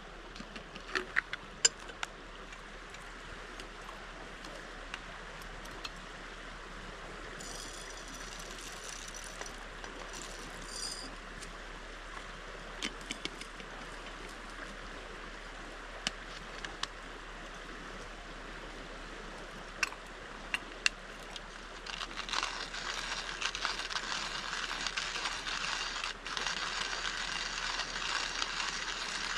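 Steady rush of a shallow stream with a few small handling clicks. From about 22 seconds in, a louder gritty grinding starts as coffee beans are ground in a hand-cranked coffee grinder.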